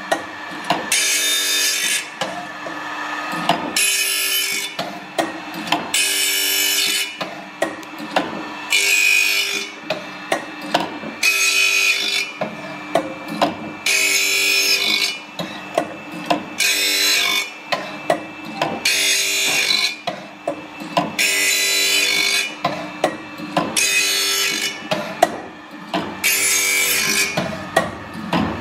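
Carbide-tipped circular saw blade being sharpened on an OSW-5M saw-sharpening machine. The grinding wheel takes one tooth at a time: a grinding burst about a second long, repeating about every two and a half seconds, with short clicks and the steady run of the machine between strokes. The blade's chipped carbide tips are being ground back hard.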